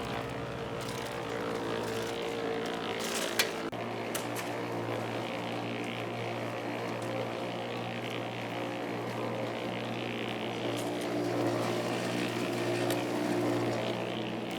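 Engine running steadily at a constant speed, with one sharp knock about three and a half seconds in.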